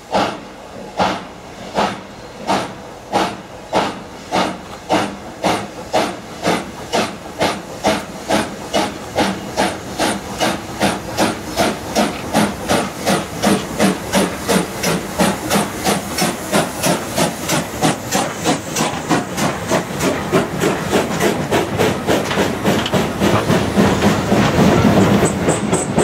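FS 625 100 steam locomotive, double-headed with 880 051, pulling away: a regular exhaust chuff that quickens from about one and a half to about four beats a second and grows louder as the engines approach, over a steady steam hiss. Near the end the carriages roll past with a louder rumble of wheels on rail.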